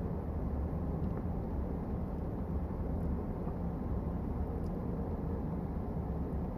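Safari vehicle's engine running as a steady low rumble.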